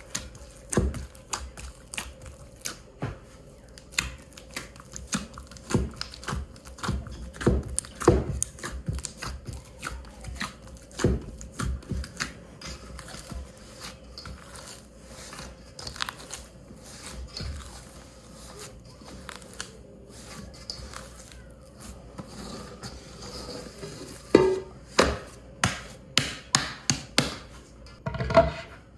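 Kitchen handling sounds: scattered knocks, taps and rustles of utensils, dishes and packaging, with a quicker run of knocks near the end.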